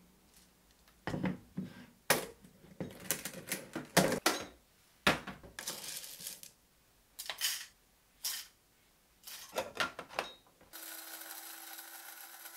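Scattered clinks and knocks of utensils against dishes and bowls, some in quick clusters. A steady hiss with a faint hum takes over for the last two seconds.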